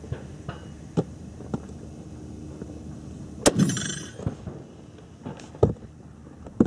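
A single shot from a Swiss K-31 rifle firing GP11 military ammunition: one sharp crack about three and a half seconds in, with a short echoing tail. A few faint clicks and knocks sound around it.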